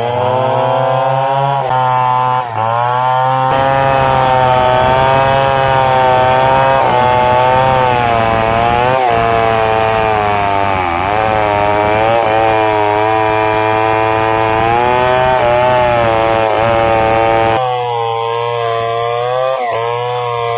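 Stihl 070 two-stroke chainsaw ripping lengthwise through a squared log, held at full throttle under load, its pitch sagging and recovering as the bar bites. Near the end it gets a little quieter, but keeps running.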